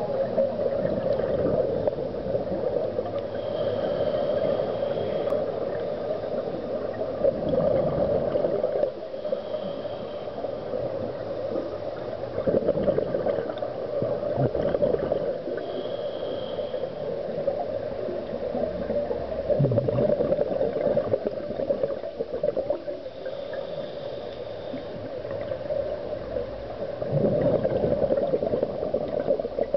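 Scuba regulator breathing heard underwater: bursts of exhaled air bubbling and crackling for two or three seconds, about every six or seven seconds, with quieter stretches between breaths.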